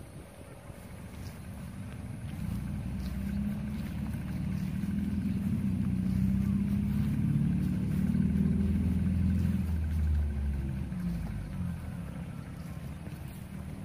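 An engine passing by: a low, pitched motor sound that grows louder over several seconds, is loudest about eight seconds in, and then fades.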